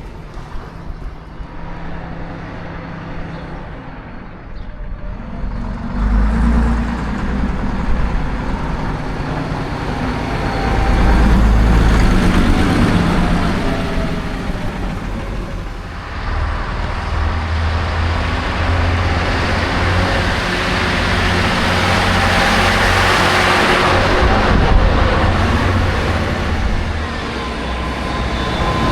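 Diesel engines of classic buses running and driving by, the engine note changing abruptly about 6 and 16 seconds in and getting louder in the second half.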